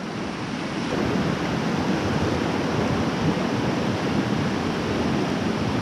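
Swollen mountain river running high after rain, a steady rush of fast water tumbling over rocks; it grows a little louder about a second in.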